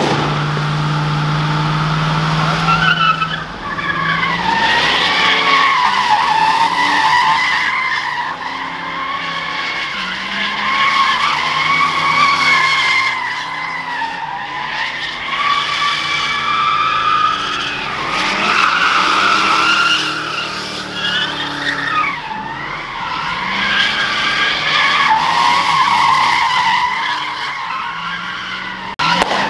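Car tyres squealing almost without a break as a car spins donuts, the squeal wavering up and down in pitch. The engine runs at high revs underneath, holding one steady note for the first three seconds.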